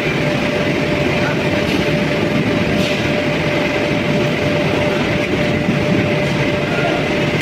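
Steady loud rumble of steel melting shop machinery, with one constant hum held throughout and a few faint clicks.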